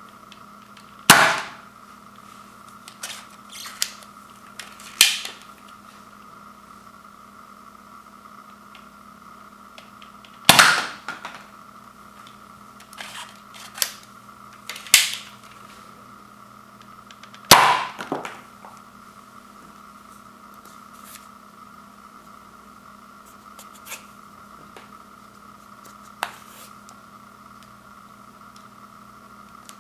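Zuru X-Shot MK3 toy dart blaster firing foam darts: three sharp spring-air pops, several seconds apart. Between them come quieter plastic clicks and knocks from loading darts and turning the manually rotating barrel.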